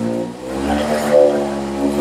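The electric motor of a motorized chiropractic motion table running as it moves the patient's lower back through passive motion. Its hum rises and falls in pitch with the cycling load.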